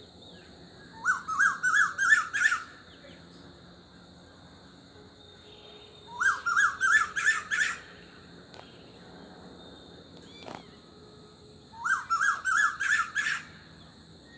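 A bird calling three times, about five seconds apart. Each call is a quick run of about seven short rising notes lasting about a second and a half. Under it runs a steady high drone of insects.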